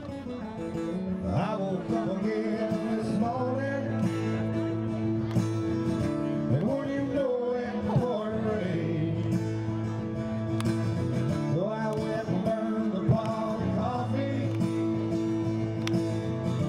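A country-style song: a singer with guitar accompaniment, sung lines rising and falling over held chords and a steady bass.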